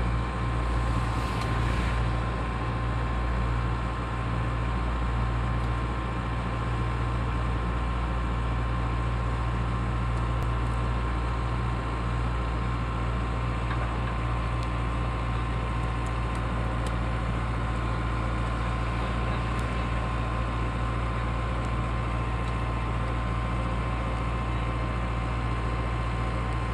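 JCB 2DX backhoe loader's diesel engine running steadily as it works a hydraulic earth auger, with a steady whine above the engine note.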